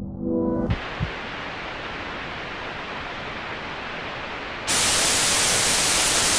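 Electronic static hiss, like a screen showing snow. A low musical drone fades out in the first second as the hiss comes in, and the static jumps much louder about four and a half seconds in.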